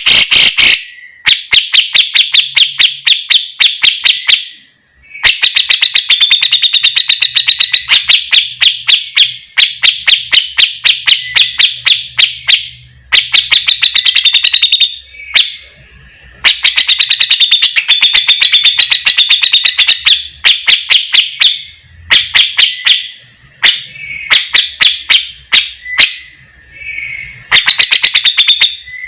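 Grey-cheeked bulbul (cucak jenggot) singing loudly: runs of rapid repeated notes, several a second, each run lasting a few seconds and broken by short pauses.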